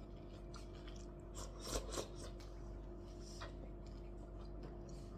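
Quiet sounds of eating at a table: a few soft clicks and crunching chews, a small cluster just under two seconds in and another about three and a half seconds in, over a steady low hum.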